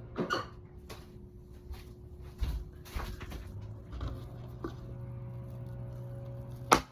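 A pointed tool scraping and prying at the wood stringer inside a foam surfboard blank: scattered small clicks and scrapes, then one sharp crack near the end as the stringer piece breaks loose.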